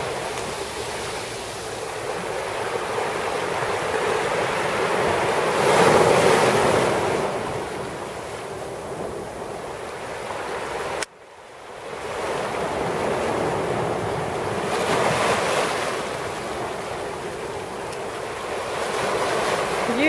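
Small sea waves breaking and washing up the beach in a steady hiss of surf. The wash swells twice, about six and fifteen seconds in, and drops out abruptly for a moment about eleven seconds in.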